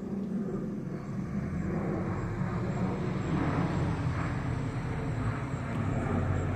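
Jet engines of a Boeing 737 MAX 8, its CFM LEAP-1B turbofans, running with a steady low rumble that grows a little louder about a second in.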